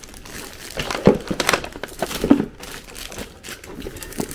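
Plastic wrapping crinkling and rustling as a plastic-wrapped box is handled and lifted, in irregular crackles, loudest about a second in and again just past two seconds.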